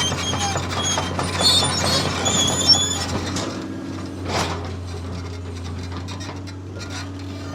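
Radio-controlled toy bulldozer's motors and gear-driven tracks running, a steady hum with rattling, gear-like clatter.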